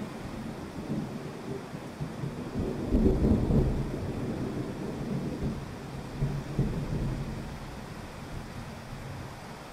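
Heavy rain falling steadily on a wet street, with a low rumble of thunder that swells about three seconds in and rolls away over the next few seconds.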